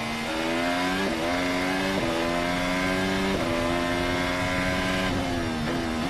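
Red Bull Renault Formula One car's 1.6-litre V6 turbo-hybrid engine heard onboard, pulling hard with its pitch rising and dropping at quick upshifts about one, two and three and a half seconds in. Near the end the driver brakes and the engine note falls in steps with short blips as it downshifts.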